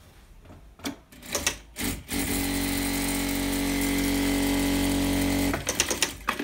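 Industrial lockstitch sewing machine running at a steady speed for about three seconds, a test seam after the rotary hook timing has been adjusted. It starts about two seconds in and stops abruptly with a few clicks, and there are short clicks and rustles of the fabric being positioned before it.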